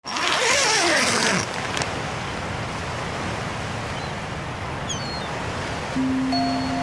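Ocean surf washing steadily, opening with a loud whoosh that falls in pitch over the first second and a half. Near the end a low steady tone comes in, the start of the logo chime.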